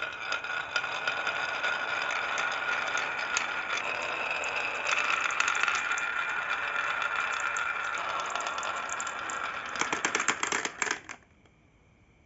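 Marbles rolling and clattering down a marble run: a steady rolling rattle with a faint ringing tone and many small clicks. It ends in a quick flurry of clicks about eleven seconds in, then stops.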